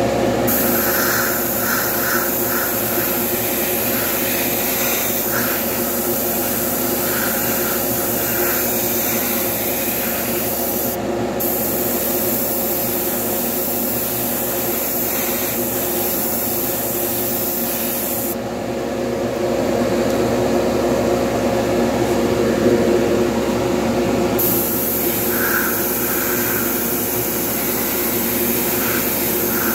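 Airbrush hissing as it sprays paint, with the hiss stopping briefly near the middle and for several seconds about two-thirds through, as the trigger is let off between passes. Underneath runs a steady motor hum.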